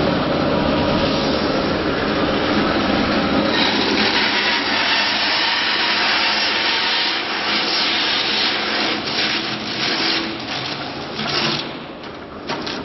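Tyre sidewall cutter running, its motor turning a clamped truck tyre against the cutting blade as it cuts through the rubber. The noise is steady and loud, gets harsher a few seconds in, and has scraping and rattling toward the end before it turns quieter.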